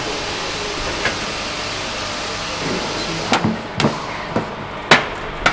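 Sharp knocks and clicks from work on a metal aircraft gun turret: one about a second in, then a quick run of five in the second half. They sound over a steady background hum.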